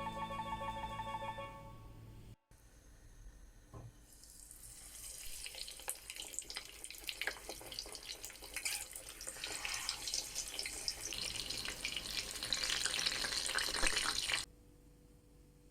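Background music for about two seconds. Then, after a cut, food frying in hot oil: a dense sizzle with fine crackling that grows louder and then cuts off sharply near the end.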